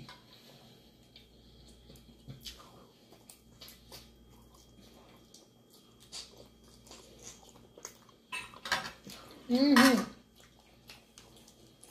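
Metal forks clicking and scraping on glass plates of pasta, with chewing in between. Near the end comes a louder rustling stretch and a brief voice sound.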